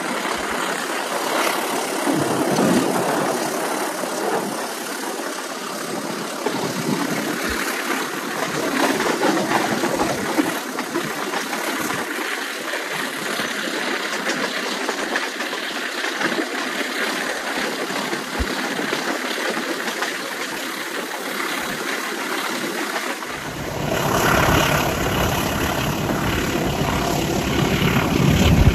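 CC203 diesel-electric locomotive running under load, heard from the train with the steady rumble of the coaches on the rails. About 23 seconds in the sound turns louder and deeper and stays that way.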